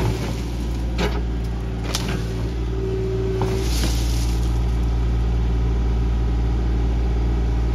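Compact excavator's diesel engine running steadily as its bucket digs into soil around a root, with a few knocks from the bucket in the first two seconds. A brief hydraulic whine cuts off near the middle, and the engine's low drone grows stronger from then on.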